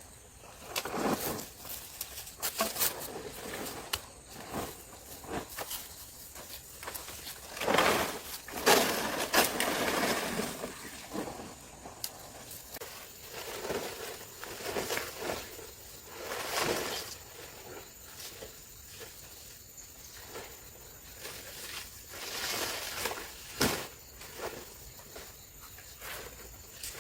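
Irregular rustling, scraping and handling noises with a few sharp knocks, as of materials being moved and worked by hand.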